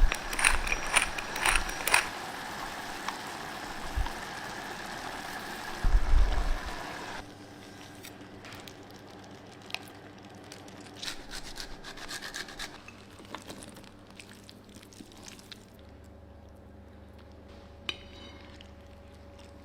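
Kitchen utensils clinking, knocking and scraping, busiest in the first few seconds and then sparse, over a low steady hum.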